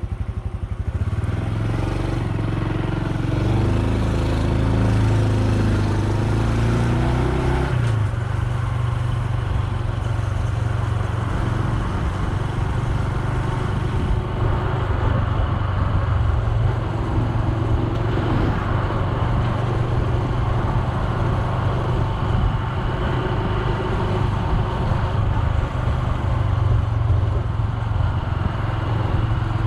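Honda Super Cub C125's 125 cc air-cooled single-cylinder four-stroke engine running steadily while riding, its pitch rising and falling with the throttle in the first several seconds and again partway through.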